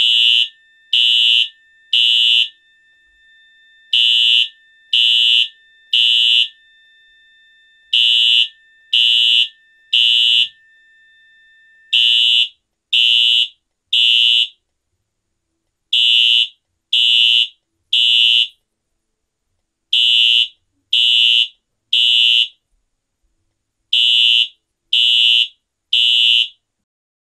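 Wheelock AES-DL1 electronic fire alarm horn sounding its EH-style horn tone in groups of three short blasts with a pause between groups, the pattern repeating about every four seconds. It signals a fire alarm set off at the pull station.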